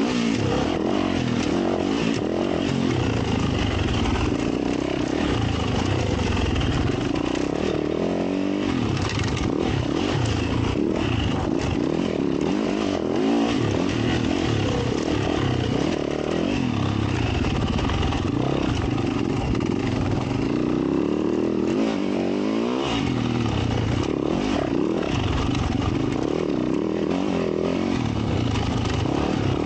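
2022 Yamaha YZ450F's 450 cc single-cylinder four-stroke engine being ridden off-road, its pitch rising and falling constantly with the throttle, with occasional clatter.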